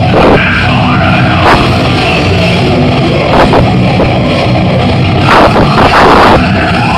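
Live djent metal band playing loudly, with heavy guitars and drums and a few loud hits. The recording is overloaded and sounds awful.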